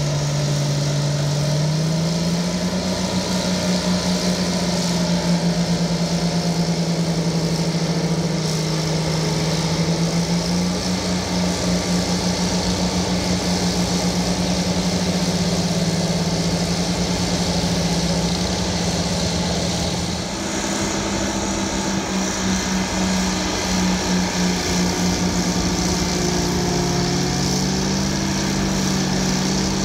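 Euclid TC-12 crawler dozer's twin Detroit Diesel 6-71 two-stroke engines running under load as it pushes dirt. The engine note steps up and down several times, with a throbbing pulse at times.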